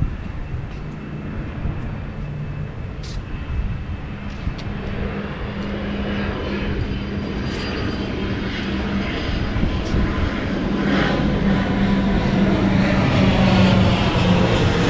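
A low engine drone, growing steadily louder throughout, with a few faint clicks on top.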